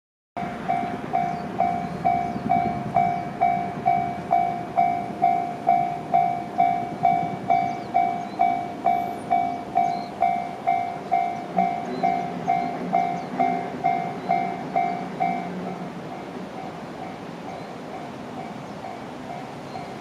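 Japanese railway level crossing's electronic warning bell ringing about twice a second while the crossing barriers come down, warning of an approaching train. About fifteen seconds in, the ringing turns much quieter and carries on.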